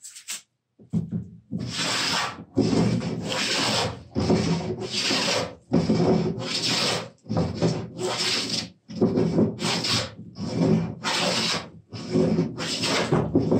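Wooden jointer plane pushed in repeated strokes across a workbench top, each stroke a hiss of the iron taking a shaving, about one stroke a second, starting about a second in. The top is being flattened: a high corner is being planed down to take the twist out of it.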